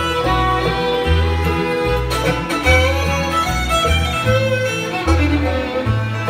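Live bluegrass band playing an instrumental passage, with the fiddle bowing the melody over banjo and acoustic guitar. An upright bass plays a steady run of low notes underneath.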